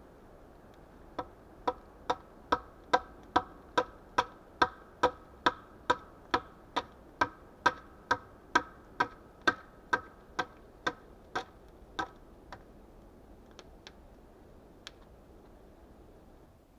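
Steady, evenly paced knocks of a hand tool striking wood, a little over two a second, each with a short ring. They stop about three quarters of the way through, and a few faint knocks follow.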